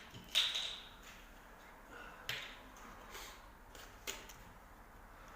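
Handling noises: about five short, separate clicks and crackles roughly a second apart, the first a little longer than the rest.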